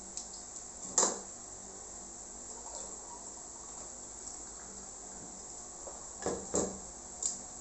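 Tableware knocking on a table: a sharp clink about a second in, then a few knocks near the end as a juice pitcher and glass are handled and set down, over a steady high trilling of crickets.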